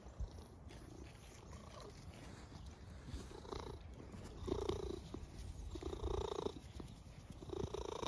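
Domestic cat purring right at the microphone, swelling into louder pulses roughly every one and a half seconds from about three seconds in.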